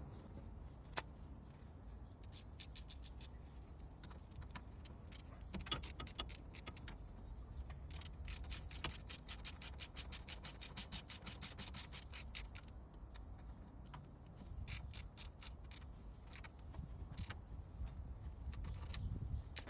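Runs of rapid light metallic clicks, several a second, coming in four or five spells with one sharper click about a second in, from hand tools working on metal.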